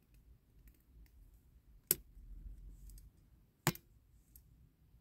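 Small pliers clicking against the diecast metal ladder turntable of a Dinky Toys fire escape as its tabs are worked over: two sharp clicks, about two seconds in and again about a second and a half later, with a few faint ticks.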